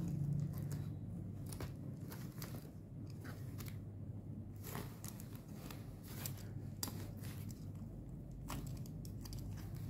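Utility knife slitting packing tape along a cardboard box's seam: irregular crackling and scraping of the blade through the tape and cardboard, over a steady low hum.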